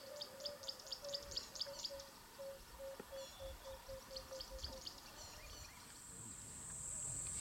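Bush ambience with birds calling: quick high chirps over the first two seconds and a steady series of short, low, evenly repeated notes that slow and stop about two-thirds of the way through. A steady high-pitched insect buzz, like a cicada or cricket, starts near the end.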